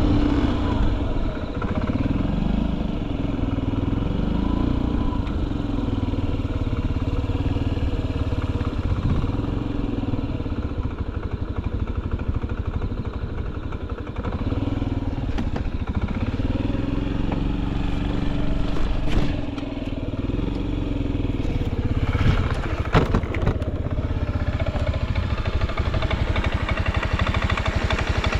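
Carbureted Honda Zoomer (AF58) scooter's small four-stroke single-cylinder engine running, its speed rising and falling several times as the throttle is worked. A few sharp clicks come about three-quarters of the way through. The engine runs quietly, with no abnormal noise.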